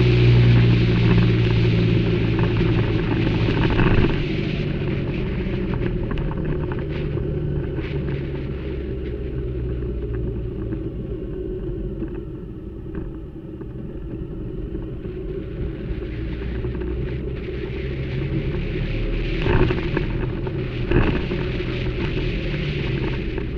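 Motorcycle engine running as the bike rides along, a steady low note that is loudest in the first few seconds and then softer, under a steady rushing noise. Two short knocks stand out near the end.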